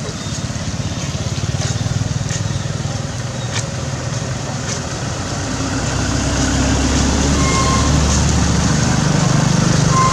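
Road traffic passing on wet asphalt: motor vehicle engines with tyre hiss. One vehicle's engine grows steadily louder over the second half as it approaches, and two short high tones sound near the end.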